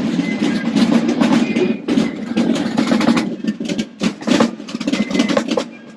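Group of marching snare drums playing fast strokes and rolls in a dense rhythm.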